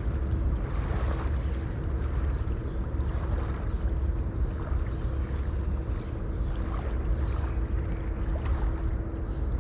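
River water flowing with a steady rushing noise and a deep low rumble, with a faint steady hum underneath.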